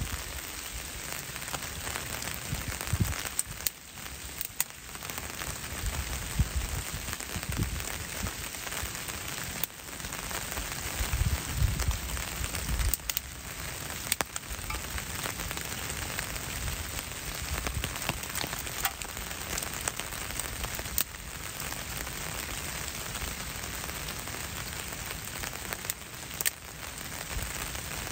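Steady rain pattering on wet leaf litter, with scattered sharp crackles from a small twig fire just catching. A few low thumps come through now and then.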